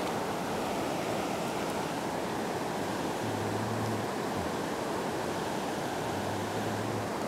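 Steady rush of river water running over a rocky riffle.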